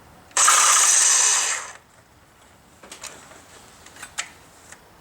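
Reciprocating saw (Sawzall) run briefly, for about a second and a half, as its blade starts a cut into the vehicle's metal EGR tube, then stops. A few light knocks follow.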